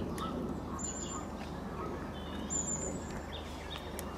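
Small birds singing: a short, thin, high note repeats every second or two, with a few other brief chirps, over a steady low background rumble.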